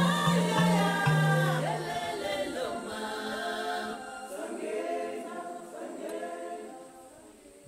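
Background music: a choir of several voices singing, with low held notes in the first two seconds, fading out near the end.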